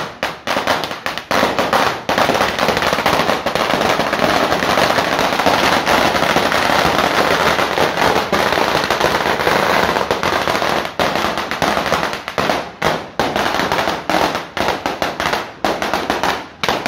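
A 1,000-round Phoenix Sawa Red firecracker string going off: a loud, continuous rattle of rapid bangs that thins to scattered bangs with short gaps over the last several seconds.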